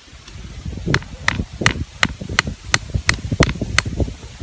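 A hammer striking the top of a sharpened wooden dowel stake, driving it into the ground: a steady run of about nine sharp knocks, roughly three a second, starting about a second in.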